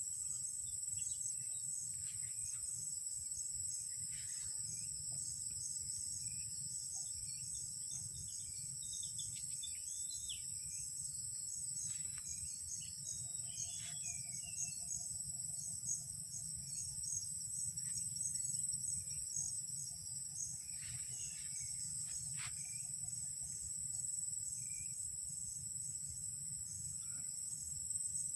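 Steady, high-pitched insect chorus of crickets or similar insects, shrilling without a break. A low rumble runs beneath it, with a few short chirps and two brief trills in the middle.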